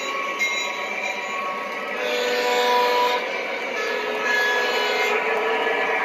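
O-gauge model diesel locomotive running along three-rail track, a continuous hum with several steady tones that shift in pitch a few times.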